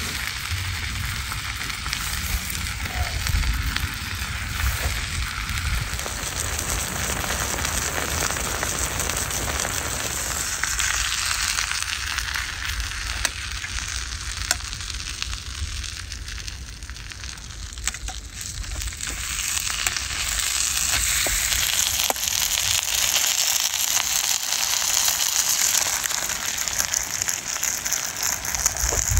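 Food frying in a pan, a steady sizzle with small crackles and pops that grows louder in the last third.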